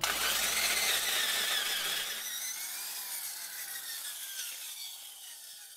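Hand-held power drill turning a long auger bit into rock. The drilling noise starts suddenly and slowly fades away toward the end.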